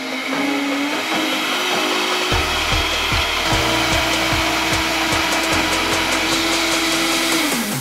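Vitamix Creations Elite blender running at high speed, pureeing a thick green smoothie of spinach, avocado, banana and lemon. The motor's pitch rises as it speeds up over the first few seconds, holds steady, then falls away near the end as it is switched off.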